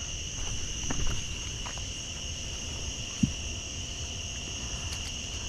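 Steady chorus of insects trilling without a break, in two high-pitched bands, over a low outdoor rumble, with a single small knock about three seconds in.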